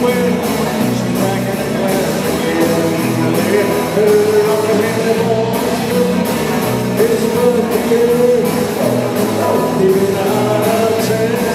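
Live rock-and-roll band playing: electric guitars, bass and a drum kit keeping a steady beat, with a voice singing the melody over them.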